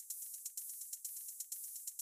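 Background music thinned to a high, hissy percussion beat like a shaker or hi-hat, about four strokes a second, with no bass or vocals coming through.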